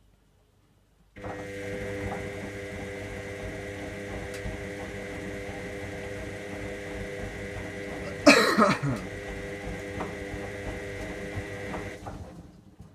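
Electra AWF683 washing machine starting a steady mechanical hum about a second in, which fades out near the end. About eight seconds in, a brief loud sound falling in pitch cuts across it.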